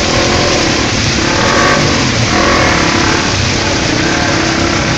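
Heavy rain and rushing water noise on a flooded street, with a car engine rising and falling in pitch as cars drive through the standing water.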